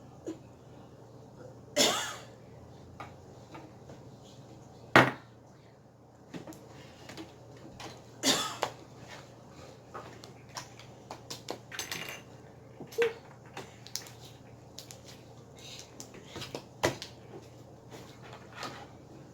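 Scattered clicks, knocks and rustles of slime and its plastic containers being handled and mixed, with a sharp knock about five seconds in.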